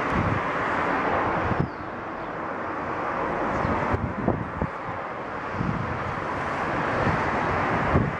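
Outdoor wind: irregular low gusts buffeting the microphone over a steady rushing noise, with the level dropping abruptly about a second and a half in.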